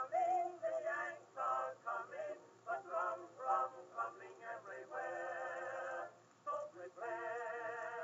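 Background music with a man singing: quick sung words, then long held notes with a vibrato about five seconds in and again near the end.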